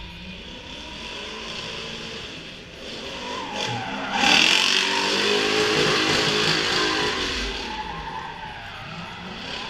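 Drift car sliding through a corner, its tyres squealing in a long skid while the engine runs at high revs, the pitch wavering. The noise builds from about four seconds in, is loudest for the next few seconds, then fades as the car moves away.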